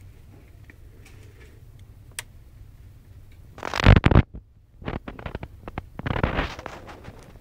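Handling noise on a handheld camera's microphone: scattered light clicks and two louder rubbing bursts, the first about four seconds in and cut off abruptly, the second about six seconds in, over a faint steady low hum.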